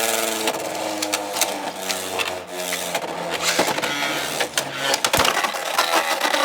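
Beyblade X spinning tops whirring against each other in a plastic stadium. Their whine slowly falls in pitch as they lose speed, and there are many sharp clacks as they collide. A flurry of hits comes near the end, as the battle ends in an Xtreme finish.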